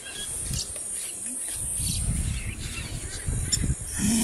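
Low, rumbling animal sounds from a lioness holding a blue wildebeest in a killing bite, building about a second and a half in.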